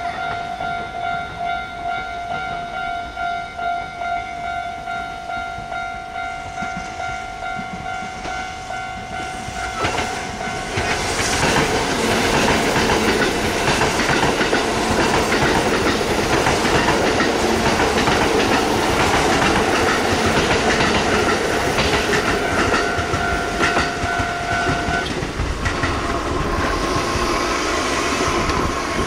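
A railway level-crossing warning bell rings in a steady repeating pattern. About ten seconds in, a Kintetsu electric train passes over the crossing with loud running noise and wheel clatter. The bell stops shortly before the train noise dies away near the end.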